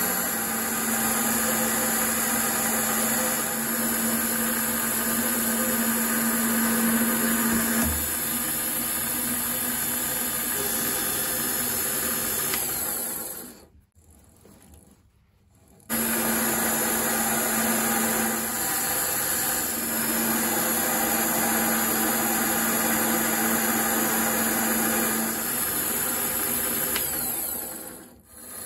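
Mini lathe running while a carbide tool turns the aluminium workpiece: a steady motor whine with cutting noise. The sound drops to near silence for about two seconds midway, then resumes the same way.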